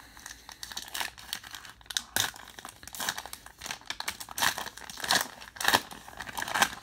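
Wrapper on a trading card being torn open and crinkled by hand: an irregular run of crackles and rustles.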